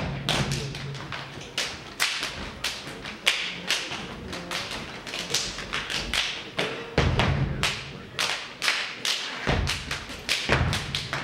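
Step team stepping: a fast, rhythmic run of sharp foot stomps on the stage floor, mixed with body-percussion slaps.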